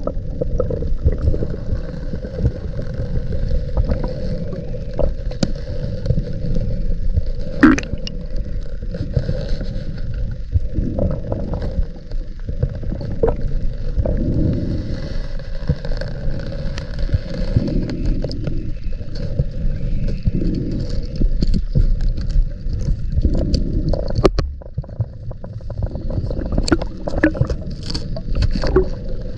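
Muffled underwater rumble of a scuba diver's gear, with gurgling exhaled bubbles swelling every few seconds and small sharp knocks and scrapes on the camera housing.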